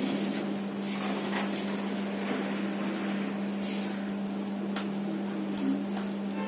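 Steady low electrical hum with room hiss. Two short high beeps about three seconds apart from the digital coating thickness gauge's keypad as its buttons are pressed, then a few faint clicks near the end.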